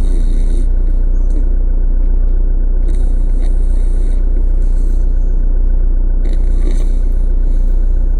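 Steady low rumble of a car on the move, heard from inside the cabin. About every three seconds a short breathy hiss rises over it.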